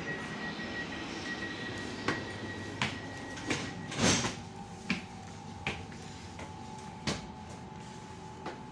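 Steady hum of a train, broken by a string of irregular knocks and clunks, the loudest about four seconds in, as someone moves about boarding it.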